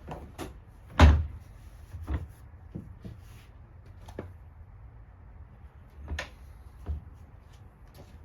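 A few separate knocks and thumps, the loudest about a second in, with lighter ones near two seconds and again around six and seven seconds, and small clicks between them.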